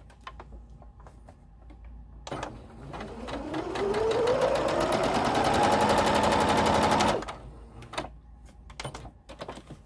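Electric sewing machine stitching: it starts about two seconds in, its motor speeding up with a rising whine before running steadily with rapid needle strokes, and stops suddenly after about five seconds. Faint clicks of fabric handling come before and after.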